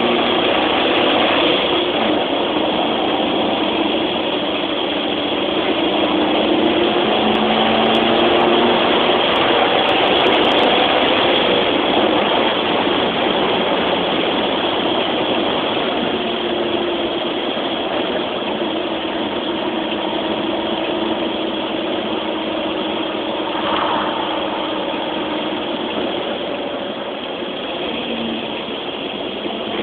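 Citroën DS four-cylinder engine and road noise while the car is being driven, a steady drone whose engine note drifts gently up and down with speed.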